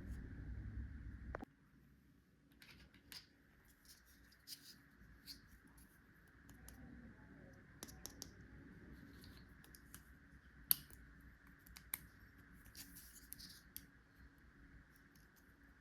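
Faint scattered clicks and scratches of plastic toy tools and their packaging being handled, with one sharper click about eleven seconds in. A low rumble underneath stops suddenly about a second and a half in.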